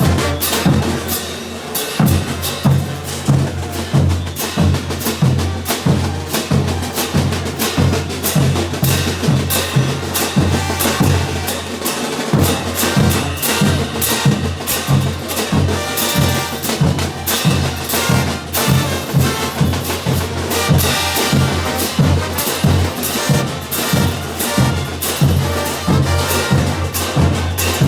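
Bolivian brass band playing a morenada: drums and cymbals beat a dense, steady rhythm under sustained low brass notes.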